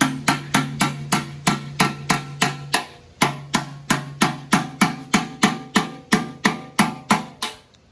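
Background music: quick ringing plucked or struck notes, about four a second, over a held bass note, fading out near the end.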